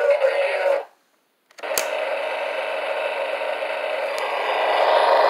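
Funrise Tonka Roadside Service tow truck toy: its electronic sung jingle cuts off under a second in, and after a brief silence and a click, a steady motor-like buzzing sound effect plays through its small speaker for about four seconds, growing slightly louder toward the end.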